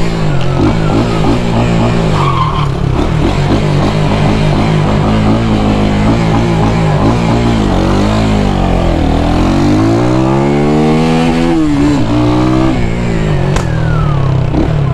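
Brand-new Missile 250cc timing-chain motorcycle engine heard from on board while riding. The engine note repeatedly climbs and falls as the bike accelerates and eases off, dips about nine seconds in, then makes one long climb to a high pitch before dropping near the end.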